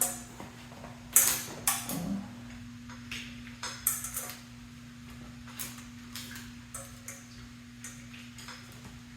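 Light clicks and knocks of metal parts and wiring being handled as the old handlebars are worked up off a Harley-Davidson Softail. The clicks are busiest in the first four seconds and sparse after, over a faint steady hum.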